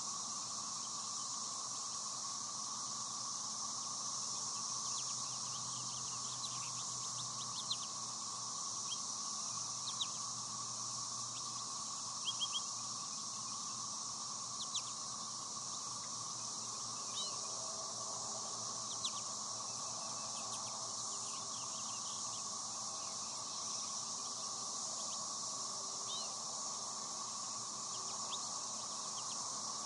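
Scattered short chirps of American goldfinches calling at the feeders, some in quick runs of two or three, over a steady high drone of insects.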